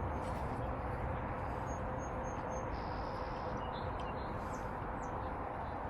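Faint, short bird chirps over a steady rushing background noise.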